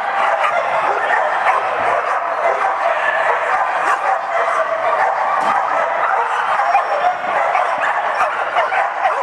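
Dogs barking and yipping repeatedly over a steady din of noise.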